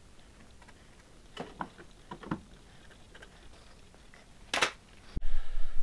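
Faint clicks and knocks of locking pliers and tools being handled against the car's steel body while a repair panel is clamped in place, with a short brushing noise about four and a half seconds in. Near the end a sharp click, then a louder steady hum.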